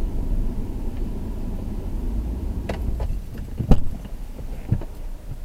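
Steady low rumble of a car in motion heard from inside the cabin, with three sharp knocks in the second half, the loudest about three and a half seconds in.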